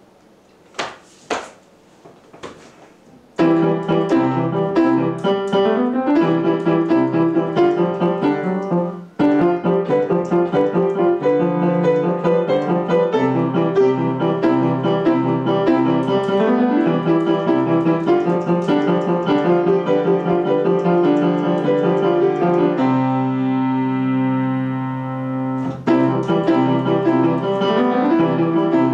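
Upright piano played solo, starting about three seconds in after a few sharp knocks. The playing breaks off briefly near nine seconds, and a long held chord rings out near the end before the playing resumes.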